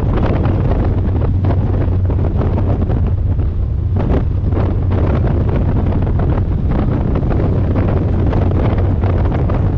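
Strong wind buffeting the microphone aboard a moving ferry, over the boat's steady low engine drone.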